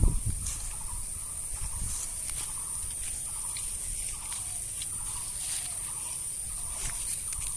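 Steady high-pitched drone of insects, with short calls near 1 kHz repeating about twice a second and a few sharp clicks.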